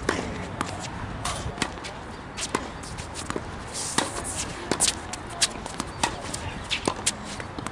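Tennis rally on a hard court: sharp pops of the racket striking the ball and the ball bouncing on the court, one every half second to a second.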